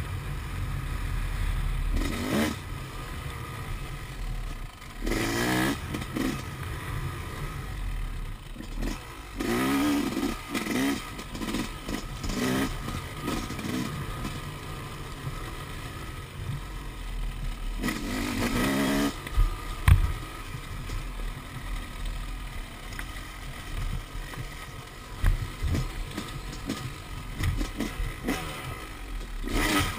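Yamaha YZ250 two-stroke dirt bike engine revving up in repeated bursts as it is ridden over a rough dirt track, with wind rumbling on the microphone. A sharp knock stands out about twenty seconds in.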